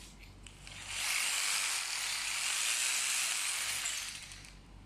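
Electric drill boring a hole into a painted wall for a TV wall-mount bracket: a steady hiss that starts about a second in and fades out near the end.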